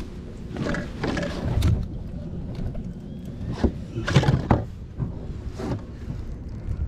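Rustling and a few dull knocks from a pompano being lifted out of a mesh landing net and handled on a plastic kayak, over a steady low rumble.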